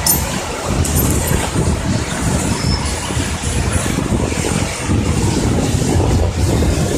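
Cat 320D tracked excavator at work: its diesel engine running steadily, with a thin high metallic squeal for a couple of seconds and a few sharp clanks near the start.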